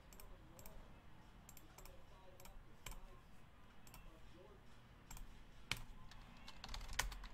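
Faint, scattered clicks of a computer mouse and keyboard, coming irregularly, with a couple of louder clicks in the second half.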